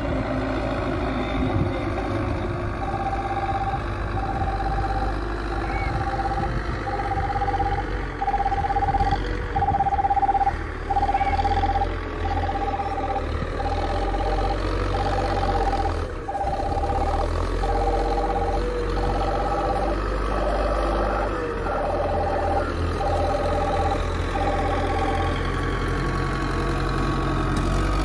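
Belarus tractor's diesel engine running steadily under load as it drags a laser land-levelling scraper. Over it, a repeated high beeping tone, about one long beep every second or so, starts about three seconds in and stops a few seconds before the end.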